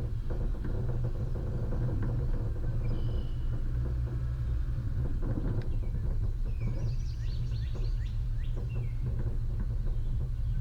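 Off-road vehicle's engine running with a steady low rumble, with scattered light knocks and rattles. A few short bird chirps come over it.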